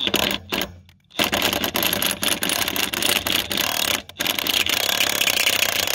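Battery-powered impact wrench hammering a bolt extractor socket on a sleeved wheel lock nut, breaking it loose. Two short bursts at the start, then two long runs of rapid hammering with a brief pause between them.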